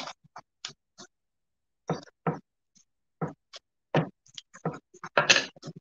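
Handling noise of painter's tape being folded and pressed down on a painted board with a small straight-edge: irregular short taps, clicks and scrapes, with a quick cluster of them near the end.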